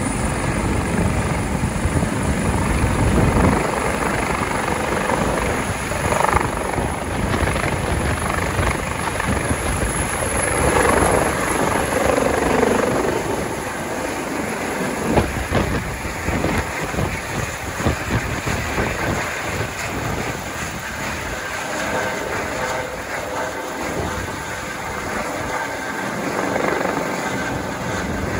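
Air ambulance helicopter lifting off and climbing away overhead: continuous turbine and rotor noise, loudest in the first half and easing a little as it climbs.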